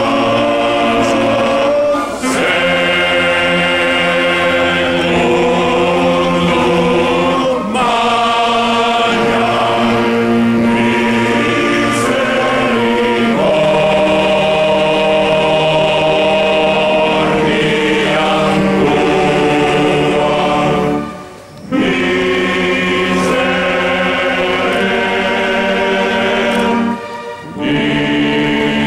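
Large male choir singing a slow sacred chant in long, held chords, accompanied by wind instruments including saxophones. There are short breaks between phrases, the clearest about two-thirds of the way in and again near the end.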